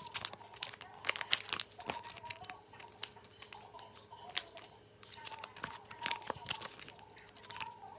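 Printed sheet-mask sachet being handled and torn open by hand: irregular crinkling and tearing of the packet, thinning out a little midway.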